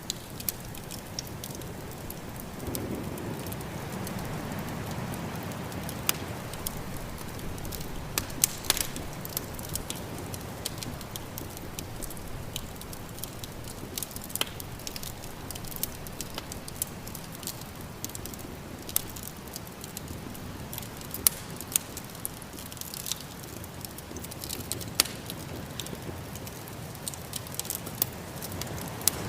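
Wood fire crackling and popping, scattered sharp snaps over a steady low rush of snowstorm wind that swells briefly a few seconds in.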